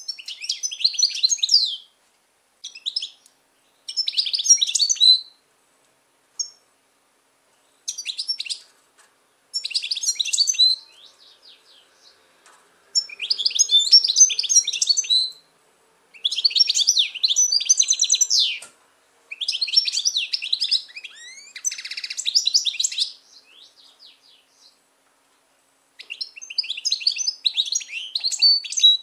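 Caged European goldfinch singing: about ten bursts of fast, twittering, trilling song, each lasting up to a few seconds, broken by short pauses. The longest phrases come past the middle.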